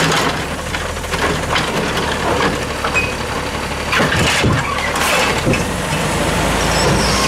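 Peterbilt 320 garbage truck's compressed-natural-gas engine running steadily while the Heil DuraPack 7000 automated side-loader arm lowers the emptied cart, with several knocks and clatters. Near the end the engine grows louder as the truck pulls away.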